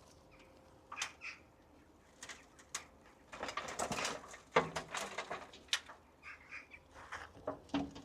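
Intermittent rustling and light knocks of soil and potatoes being handled and sorted by hand, busiest about halfway through, with a bird calling a few times.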